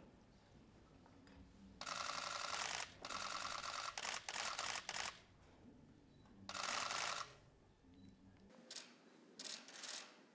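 Press cameras firing rapid bursts of shutter clicks. Several bursts of a second or two each overlap, starting about two seconds in, and shorter bursts follow near the end.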